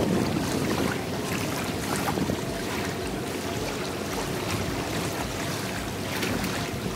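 Wind blowing across the microphone with river water lapping at the bank: a steady, even rush.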